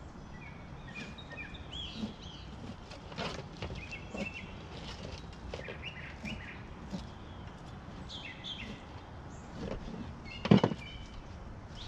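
Songbirds chirping with short repeated calls, over light scraping and tapping as fish are cleaned on a plastic table; one sharp knock near the end.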